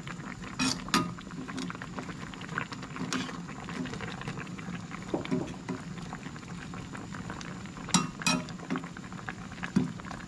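Pot of tilapia tinola (fish soup with green papaya) boiling, a steady bubbling with fine crackles, with a few sharp clinks of metal on the pot about a second in and near the end.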